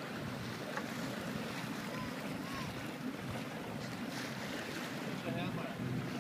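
Steady wind buffeting the microphone and water washing along the hull of a small boat under way on choppy sea.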